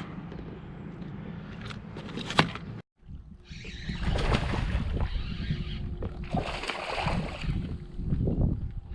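Boat moving across the water: wind and water rushing past with a low rumble and a faint steady hum, starting loud after the sound breaks off for a moment about three seconds in.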